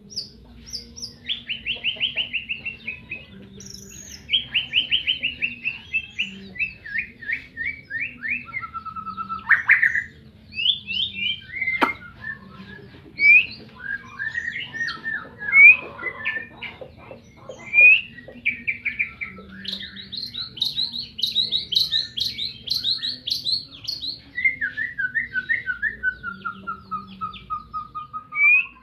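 White-rumped shama (murai batu) singing a long, varied song of fast repeated notes and clear whistles, with several phrases sliding down in pitch near the end. A faint steady low hum runs underneath.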